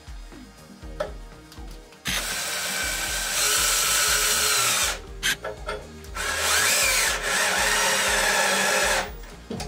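Cordless drill-driver driving screws through a metal hinge into a wooden stool frame. It runs in two stretches of about three seconds each, the first starting about two seconds in, with a couple of short bursts between them, and stops shortly before the end. Faint background music underneath at the start.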